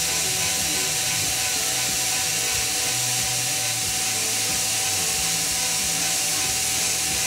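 Small cordless drill running steadily on a low speed setting, its 1/16-inch bit reaming a small linkage hole in the carburetor of a DLE 55 gas engine.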